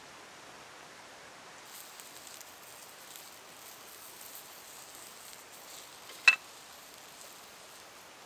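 Faint sizzling and crackling from sausages frying in a small skillet over a wood-burning camp stove. About six seconds in, one sharp metallic clank as the skillet is taken off the stove and set down on the rock.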